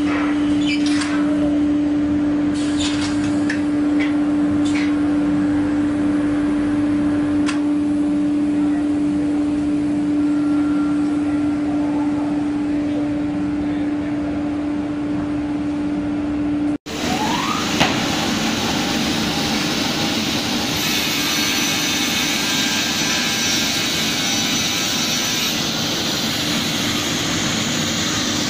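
Plywood double size saw (edge-trimming panel saw) running: a steady machine hum with a few light clicks. About 17 s in, a cut brings harsher, louder running noise with a short rising whine twice.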